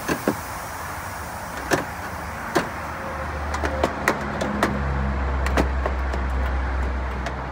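Mesh grille cut from a rain-gutter leaf guard clicking and scraping against the plastic bumper cover as it is pushed into place by hand: a scatter of sharp clicks, closer together after about three seconds. Underneath, a low rumble builds from about three seconds in.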